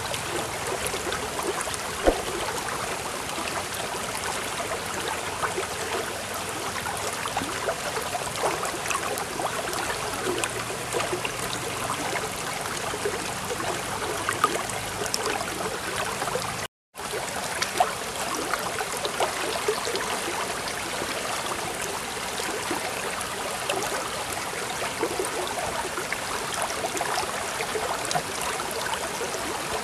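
Steady babbling of a flowing stream, water trickling and splashing over stones. It cuts out for a split second a little over halfway through.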